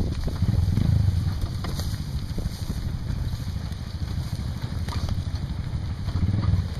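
Honda Tornado 250's single-cylinder four-stroke engine running at low revs on a dirt trail, swelling a little about half a second in and again near the end, with a few light knocks.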